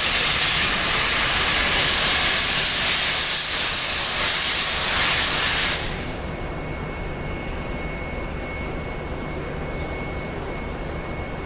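Victorian Railways R class 4-6-4 steam locomotive R707 blowing off steam in a loud, steady hiss that cuts off suddenly about six seconds in. A quieter steady rumble with a faint, thin steady tone remains after it.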